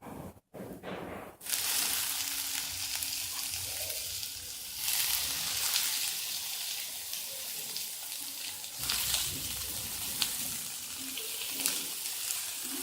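Chopped tomatoes and onions sizzling in hot oil in a pan. The sizzle starts suddenly about a second and a half in, with light clicks of a spoon stirring.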